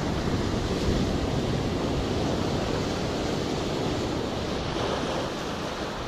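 Sea surf washing and breaking over breakwater boulders and concrete tetrapods, a steady rush of water, with wind buffeting the microphone.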